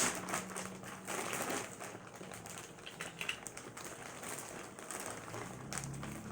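Plastic packaging rustling and crinkling in irregular handling bursts with small clicks, over a faint low hum.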